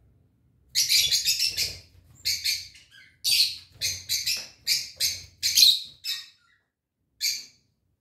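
Rosy-faced (peach-faced) lovebirds calling: loud, high-pitched, harsh chirps in a quick series of short bursts from about a second in until about six seconds, then one more short call near the end.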